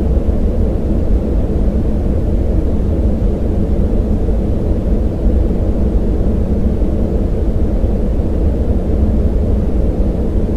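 Synthetic yellow noise: a deep, steady rushing noise with a boosted band around 200 Hz and almost nothing in the higher range, unchanging throughout.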